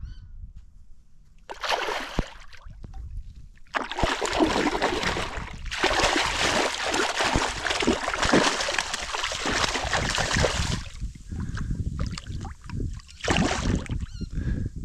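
Water splashing and sloshing in several bursts, the longest lasting about five seconds in the middle.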